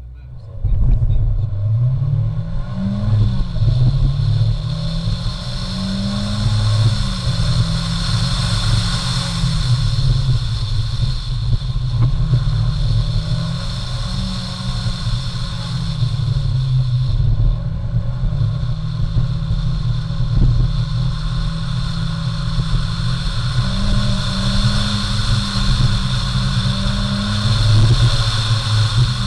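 Car engine launching hard about half a second in, then revving up and down through an autocross run, its pitch climbing and falling repeatedly and held flat near the top for stretches, bouncing off the rev limiter.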